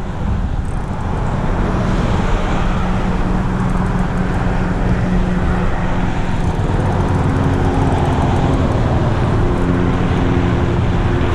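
Road traffic on the highway bridge alongside: a steady drone of tyres and engines, with a vehicle's engine hum coming in from about four seconds in and growing slightly louder.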